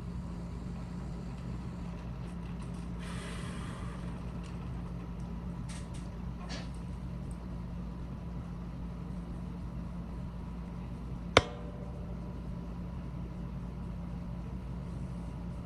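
Steady low electrical hum of workbench equipment, with a few light clicks, a short hiss about three seconds in, and one sharp click about eleven seconds in.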